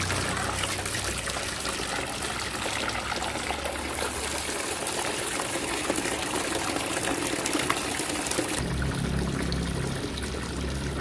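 A stream of water pouring and splashing into a large plastic tub as it fills. A little over two thirds of the way through, the splashing turns less hissy and a steady low hum comes in.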